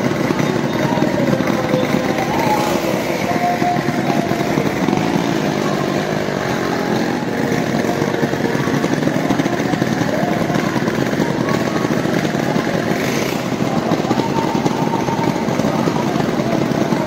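Several motorcycle engines running together inside a wooden well-of-death pit, their pitch wavering up and down as they are revved, over a steady crowd murmur.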